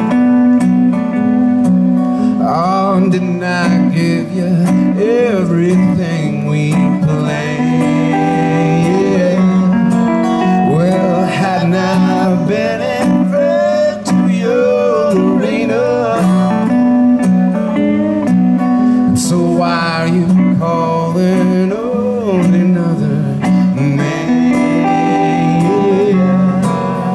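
Live amplified guitar duo: an acoustic guitar strums steady chords while an electric guitar plays a country-blues lead with bent notes over it.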